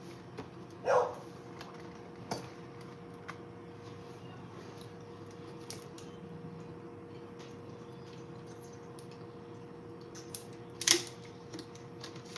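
Faint steady room hum with a few scattered small clicks and taps, a short rising squeak about a second in, and a louder knock near the end.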